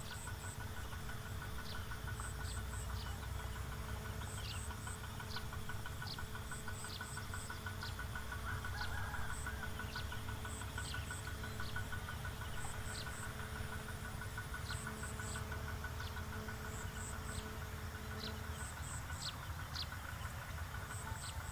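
Open-field ambience: a steady low rumble with a distant engine humming until about three-quarters of the way through, under a rapid pulsing insect trill. High chirps come in groups of two or three about every two seconds, with short falling whistle calls scattered between.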